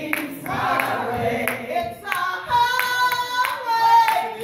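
A woman singing a gospel praise song into a microphone, with congregation hands clapping steadily along on the beat; about halfway through she holds one long note.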